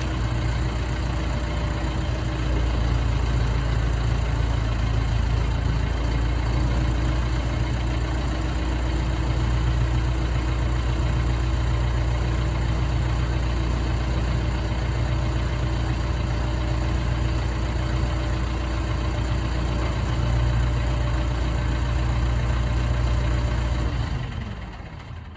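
Diesel engine of an old drill rig running steadily, with a strong low rumble; the sound fades away near the end.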